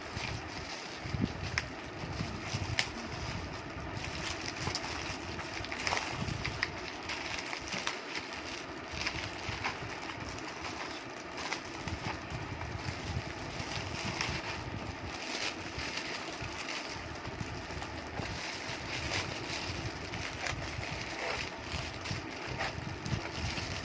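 Low, uneven rumble of handling noise on the microphone, with scattered light clicks and rustles as a packet of modelling clay is handled and opened.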